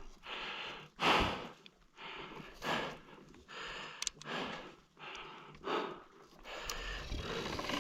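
A person breathing hard close to the microphone: short, quick breaths of air about once a second.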